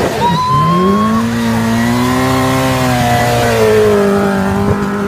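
Honda motorcycle trike's engine pulling away under acceleration. The revs drop briefly near the start, as at a gear change, then climb and hold before easing off a little.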